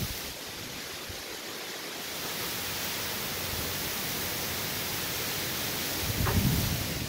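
Heavy hurricane rain falling in a steady hiss, with a gust of wind buffeting the microphone about six seconds in.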